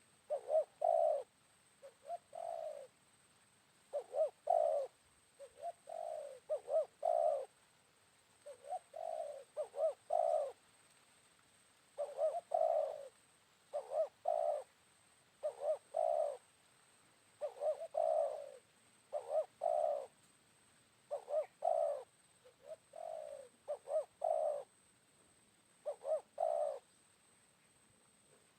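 Spotted dove cooing over and over, each phrase a quick run of two to four low coo notes, repeated about every two seconds.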